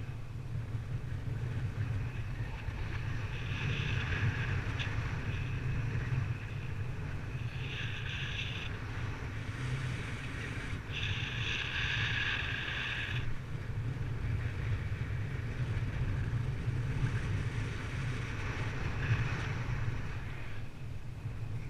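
Wind rushing over the microphone in flight: a steady low rumble, with gusts of higher hiss every few seconds.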